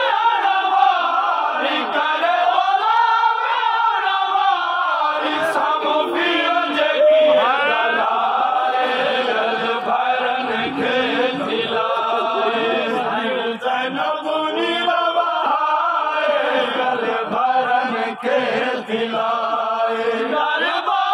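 Men chanting a noha, a Shia mourning lament, together in a slow melody that rises and falls, several voices at once.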